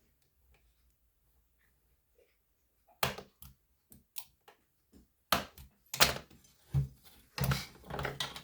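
Craft knife drawn along a straight edge to cut a line: a run of sharp clicks and short scraping strokes starting about three seconds in, with a longer stroke near the end.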